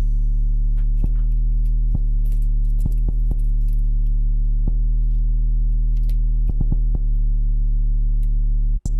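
Background beat music: a sustained low synth tone held throughout, with scattered sharp clicks and ticks over it, cutting out for an instant near the end.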